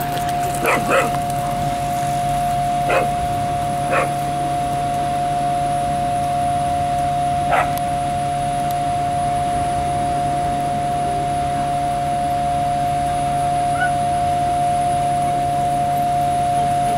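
A dog barks five times, short single barks spread over the first eight seconds, the first two close together. Under the barks a steady droning tone holds throughout.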